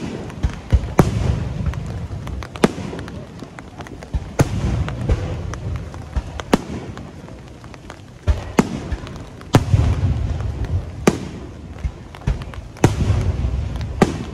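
Aerial firework shells bursting overhead one after another: about a dozen sharp bangs spaced one to two seconds apart, each followed by a low rolling rumble.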